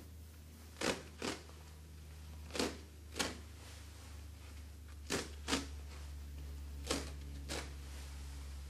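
Blue cohesive bandage being peeled off its roll as it is wrapped round the limb: short crackling rips that come in pairs, four pairs in all.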